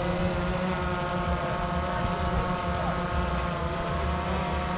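Quadcopter drone hovering close by, its propellers giving a steady multi-tone whine, with wind rumbling on the microphone.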